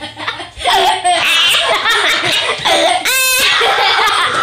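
Children laughing hard in fits and giggles, with a short high-pitched squeal about three seconds in.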